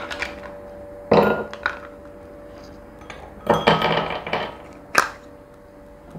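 Ice cubes dropped into drinking glasses, clinking against the glass in several separate knocks, with a short cluster of clinks a little past the middle. A faint steady hum runs underneath.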